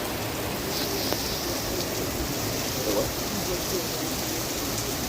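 Rain pouring down steadily in a thunderstorm, an even hiss of falling water with no letup.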